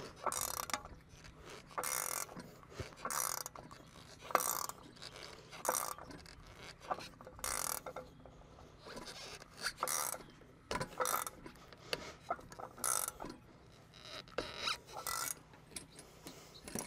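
Ratchet wrench clicking in short runs of strokes, about one run every second or so, as it turns the caging bolt of an air brake spring chamber (piggyback) to cage the power spring.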